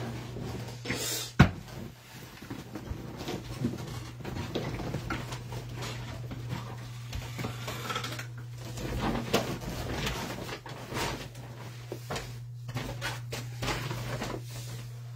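Trading-card packs and cards being handled: scattered clicks, taps and rustles of cardboard and plastic, with one sharp click about a second and a half in, over a steady low electrical hum.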